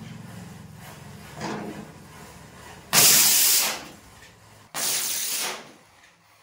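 Flower pot (anar) firework erupting in a loud rushing hiss of sparks, twice, each burst under a second long and cutting off sharply.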